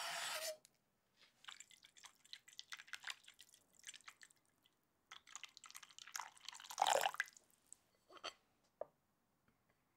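Chopped dark chocolate shavings slide off a wooden board into a glass bowl with a brief rustle. Then water is poured into a glass bowl, trickling and splashing for a few seconds. After that the chocolate shavings are tipped from one glass bowl into another with a soft pattering rush, followed by a couple of light clicks.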